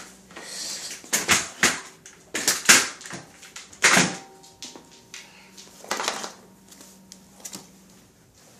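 Irregular knocks, scrapes and rustles, the loudest about a second, two and a half seconds and four seconds in: handling noise from a phone camera being moved around.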